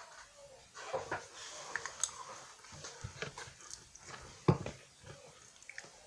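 Close-miked crunching and chewing of crisp layered pastry (French Pie), with irregular sharp crackles and mouth clicks. The loudest crunch comes about four and a half seconds in.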